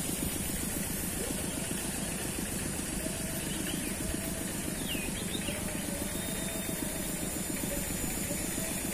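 A steady low rumble, even throughout, with a few faint high chirps about halfway through.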